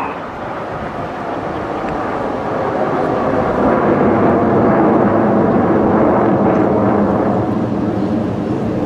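Jet noise from a formation of Red Arrows BAE Hawk jets climbing with smoke on: a steady rushing roar of several turbofan engines together, swelling about three seconds in and staying loud.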